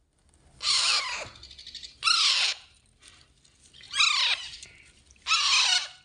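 Alexandrine parakeet chicks begging for food while being hand-fed: four harsh squawks, about one every second and a half.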